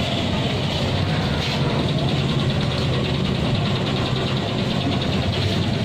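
An engine running steadily at idle, a low hum.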